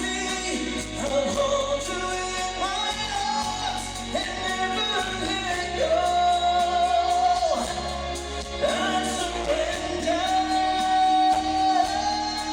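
Live show music with a singer holding long notes over a band, recorded through a phone's microphone in a large theatre.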